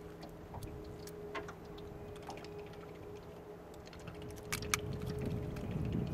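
Light clicks and taps as a caught bass and its lure are handled in an aluminium boat, over a faint steady hum. Two sharp clicks come about four and a half seconds in, and a low rumble rises near the end.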